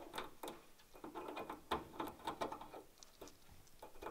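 Faint, irregular light clicks and scratches of a kitten's claws and paws moving over the hard frame of a welding machine.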